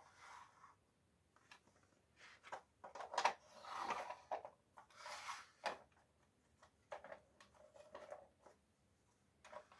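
Plywood toy box and trays being handled: light wooden knocks and clicks, with a couple of longer scraping slides near the middle as the box is pushed into place on the wooden tray.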